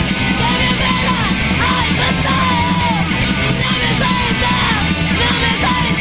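A loud rock song: a female lead vocal sung over a full band, with a steady beat.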